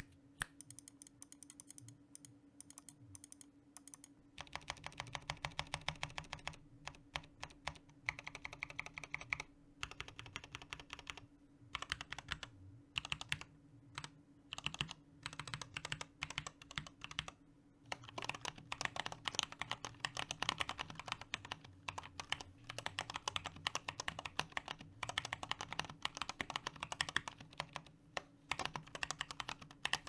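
Typing on a handwired mechanical keyboard with a 3D-printed plate and XDA-profile keycaps: a sound test of rapid key clicks and clacks. The keystrokes are sparse for the first few seconds, then come in dense runs with short pauses, and are nearly continuous in the second half.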